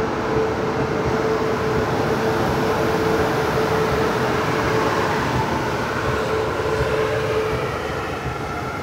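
Moving passenger train running on its track: a steady rumble and rush of wheel and rail noise, with a steady hum that stops near the end.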